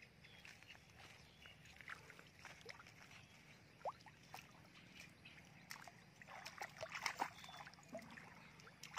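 Faint footsteps and rustling through grass and weeds, with light splashing as bare feet wade into shallow muddy water about six to seven seconds in.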